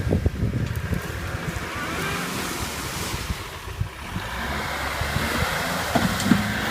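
Wind buffeting the microphone over the steady low running of a diesel 4x4 engine.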